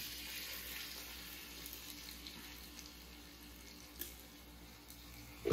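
Blended tomato and chipotle sauce being poured through a strainer, a faint steady watery hiss that slowly fades, with a small click about four seconds in.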